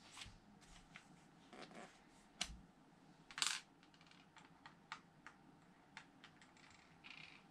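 Loose Lego pieces clicking and clattering as a hand picks them out of a spread of parts: a scatter of light clicks, with a louder rattle about three and a half seconds in.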